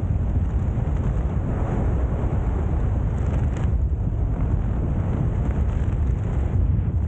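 Wind buffeting the microphone of a helmet-mounted 360 camera during parachute canopy flight: a steady low rumble.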